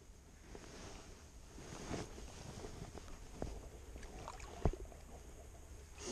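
Faint lapping water and handling noise aboard a bass boat, with a few light knocks and one sharper knock late on.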